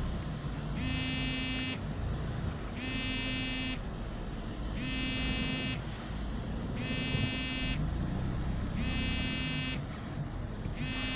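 A car's warning buzzer sounding in a steady on-off pattern, a buzz of about a second every two seconds, over the low rumble of the moving car.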